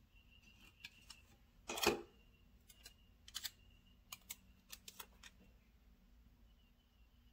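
Light clicks and taps of planner supplies and sticker paper being handled on a desk, with one louder clack about two seconds in, followed by a scatter of small clicks.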